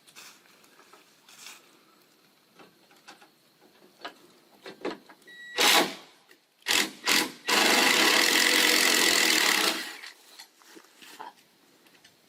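Cordless drill-driver driving a deck screw into a wooden 4x4 post: a few short bursts of the motor, then one steady run of about two seconds as the screw goes in. Light knocks and clicks of handling come before it.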